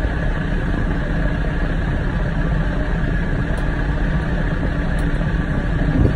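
Small farm tractor's engine running steadily while the front loader raises its bucket.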